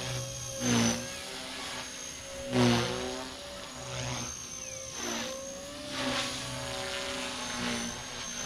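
Blade Fusion 180 Smart electric RC helicopter in flight: a steady high motor and rotor whine whose pitch sags and recovers as head speed changes, with louder rotor whooshes as the blades are loaded, most clearly about a second and about three seconds in.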